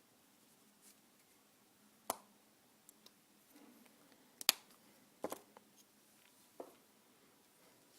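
Faint, scattered sharp clicks and taps of painting supplies being handled on a desk, about four distinct knocks, the loudest around the middle, over a low room hum.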